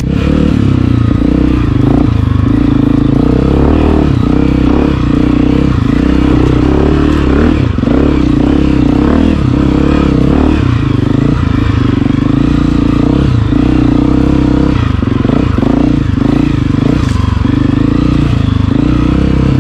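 Honda CRF250F's single-cylinder four-stroke engine running as the dirt bike is ridden along a dirt trail, the engine note swelling and dipping as the throttle opens and closes.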